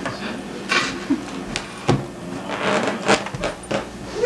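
Rustling and handling noises with a few short knocks, most likely from handling the long rubber balloon and from someone brushing close to the microphone.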